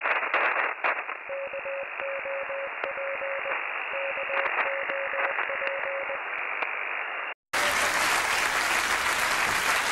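Crackling, band-limited radio static with a beeping tone keyed in short and long pulses like Morse code. After a brief cut about three-quarters of the way in, a studio audience applauds.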